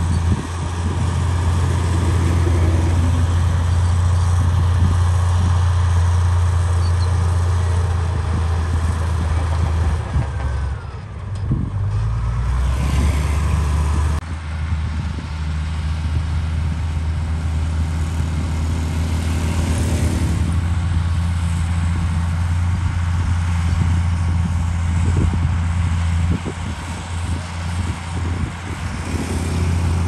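Komatsu D53P crawler bulldozer's diesel engine running steadily under load as the dozer pushes soil, a strong low drone. Around ten to fourteen seconds in the engine sound dips and its pitch slides down and back up before settling again.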